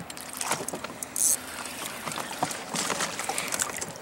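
Water lapping against a small boat's hull, with short clicks from a spinning reel being cranked against a hooked catfish, and a brief hiss a little over a second in.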